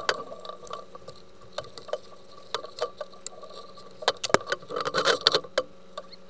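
Thick mooring rope being handled on a sailboat's foredeck: scattered knocks, rubs and rustles. They come thickest about four to five seconds in.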